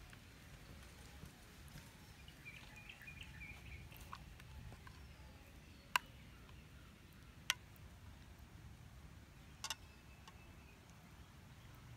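Quiet outdoor background with a few faint bird chirps, broken in the second half by three sharp, isolated clicks or knocks, the last one doubled.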